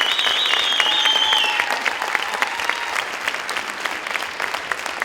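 Audience applauding, with a high wavering whistle of approval over the clapping for the first second and a half.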